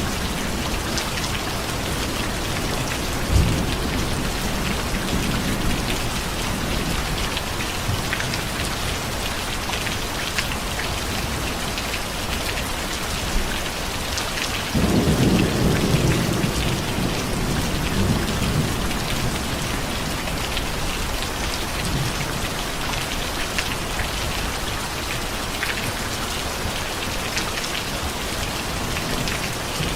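Steady heavy rain falling on surfaces, with rolling thunder: a soft rumble a few seconds in, and a louder roll starting about halfway through that lasts several seconds.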